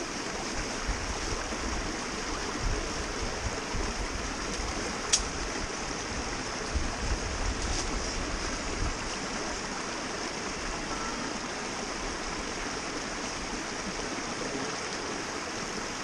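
A small rocky mountain stream rushing steadily over stones and little cascades. Two brief sharp clicks stand out against it, the louder one about five seconds in.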